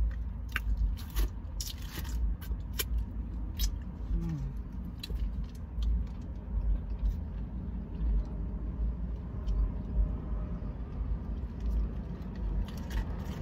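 Scattered clicks and rustles of hands handling fried chicken and tearing at a small paper condiment packet, over a steady low rumble inside a car.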